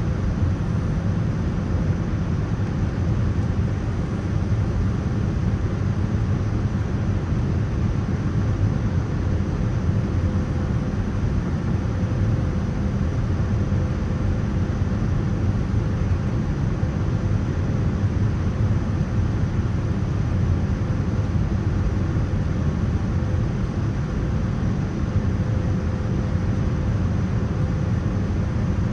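Steady low rumble and rush of air inside the cabin of a Boeing 787-9 airliner in flight, with a faint steady hum above it.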